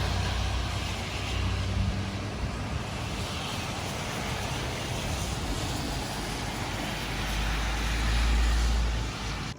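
Gusty storm wind buffeting the microphone: a steady rushing with a heavy low rumble that swells about eight seconds in, then cuts off suddenly.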